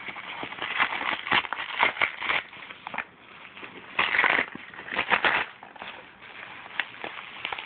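A cardboard package being torn open by hand: rough ripping and crinkling in irregular bursts with sharp snaps, the loudest rip about four seconds in.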